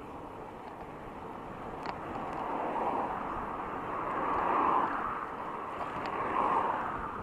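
Road traffic noise heard from a moving bicycle: a steady rush that swells as vehicles pass, loudest about halfway through and again near the end.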